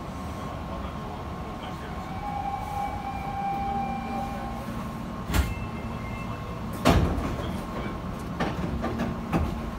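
Hankyu 8000-series electric train running slowly, heard from inside the front car: a steady low rumble with a faint held tone, then sharp wheel clacks over the track joints, the loudest about seven seconds in.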